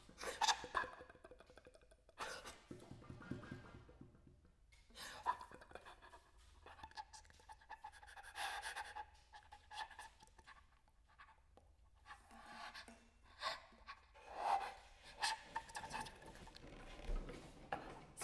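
A performer's breathy, panting exhalations and inhalations in irregular bursts of varying length. Some breaths carry faint pitched tones, part of a contemporary music performance.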